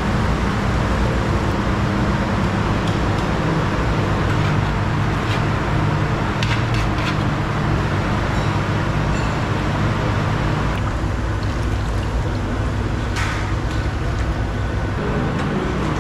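Steady low hum and rumble of commercial kitchen equipment, with a few scattered clinks of metal utensils and pans.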